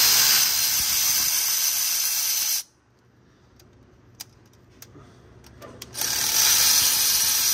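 Cordless electric ratchet running in two spells of about two and a half seconds each, backing out the small 8 mm bolts of a diesel engine's vacuum pump. A few light clicks come in the quiet gap between, as the ratchet is moved to the next bolt.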